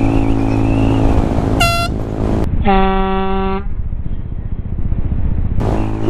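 Motorcycle engine running steadily while riding, with a short high horn toot about a second and a half in, then a lower air horn blast lasting about a second near the middle.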